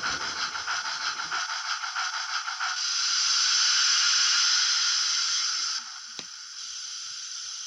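Sound effects of an LGB Stainz G-scale model steam locomotive: quick, even chuffing with the model's running gear rumbling on the track, the rumble stopping about a second and a half in. About three seconds in the chuffing gives way to a loud, steady steam hiss, which drops to a quieter hiss near six seconds, as the locomotive stands.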